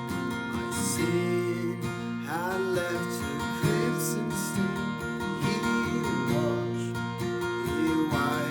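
Acoustic guitar strummed, playing a slow worship-song accompaniment.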